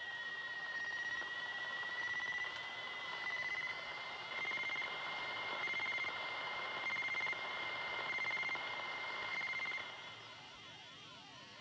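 Electronic sci-fi sound effect of an alien bomb reacting: a steady high tone that swells about once a second and creeps slightly upward, with warbling sweeps around it. It grows quieter near the end.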